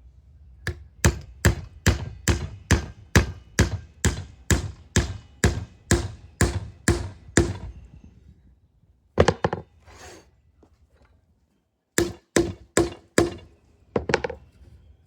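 Hammering in wood: a steady run of about sixteen strikes at roughly two a second, then a pause, a couple more strikes, and a quick group of four near the end. Each strike rings briefly.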